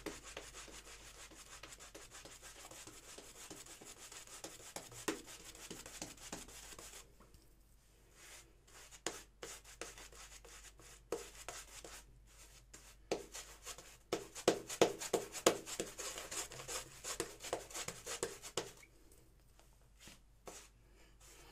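Proraso shaving brush loaded with thick Cella soap lather being worked over a scalp with five days of stubble: a steady brushing for the first several seconds, then a run of short, irregular strokes.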